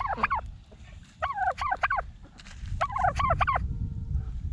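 Domestic tom turkeys gobbling, three gobbles about a second and a half apart.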